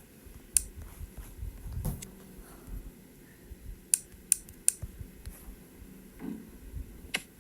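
A handful of sharp clicks and light taps, about six spread over several seconds, with soft low rumbles of handling between them.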